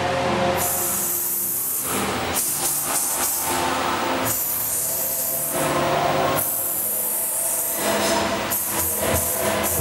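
Pearl drum kit played along to a recorded gospel backing track, the cymbals ringing out in several long stretches that break off and come back.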